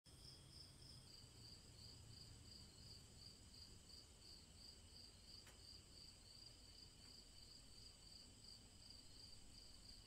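Faint crickets chirping in an even rhythm, about three chirps a second, over a steady high trill.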